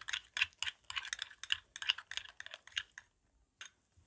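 Sticky toothpaste-and-white-glue slime paste being worked by hand in a glass bowl: a quick run of small wet clicks and squelches, several a second, stopping about three seconds in.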